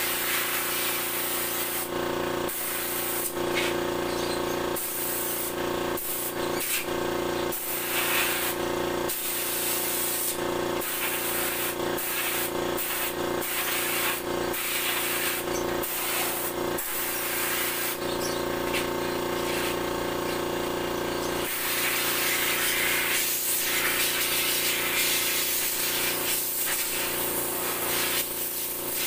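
Compressed-air blow gun hissing in repeated blasts that stop and start, blowing dirt out of a car's A/C condenser and oil cooler. A steady hum runs underneath.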